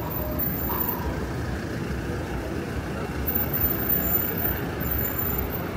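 Road traffic: vehicle engines running as a steady low rumble.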